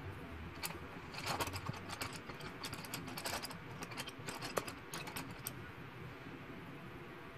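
Coloured pencils clicking and clattering against one another as a new one is picked out of the set, a burst of small, irregular clicks lasting about five seconds.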